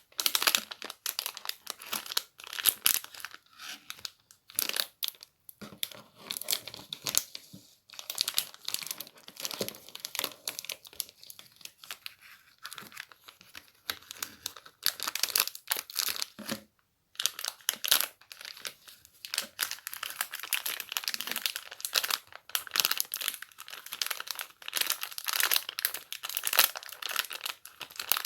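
Crinkly material being rustled and crumpled in dense, irregular crackling bursts, broken by a few brief pauses.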